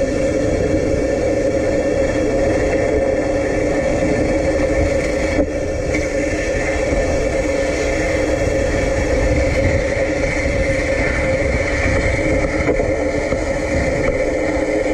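Electric tram running slowly, heard from its roof: a steady mechanical hum over a low rumble, with a brief click about five seconds in and a higher steady whine coming in soon after.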